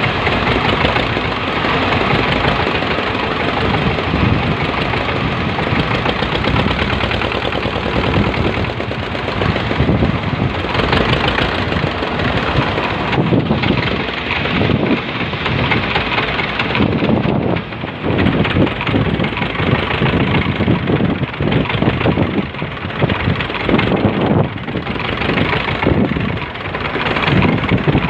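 A fishing boat's engine running steadily, with a rough, uneven noise over it.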